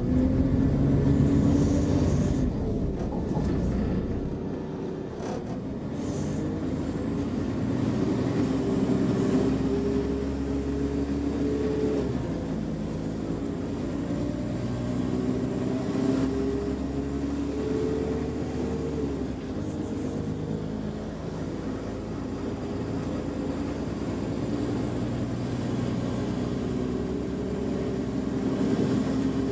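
Interior sound of a Class 172 Turbostar diesel multiple unit pulling away and gathering speed: the underfloor diesel engine runs under power, its note climbing and dropping back several times as it works up through the gears, over a steady rumble of the wheels on the track.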